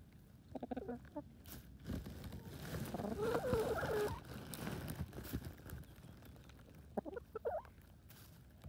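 Chickens clucking close to the microphone in three bouts: a short run of low clucks near the start, a louder, longer warbling cluck in the middle, and another short run near the end.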